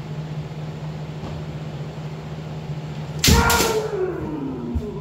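Kendo strike about three seconds in: a sharp crack of a bamboo shinai and a stamp on the wooden floor, with a drawn-out kiai shout that falls in pitch over about a second. A second short shout begins near the end, over a steady low hum.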